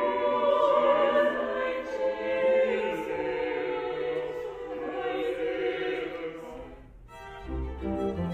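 A small mixed choir singing a slow sacred piece in sustained lines. About seven seconds in the singing breaks off, and a string ensemble with violins and cello begins playing separate notes.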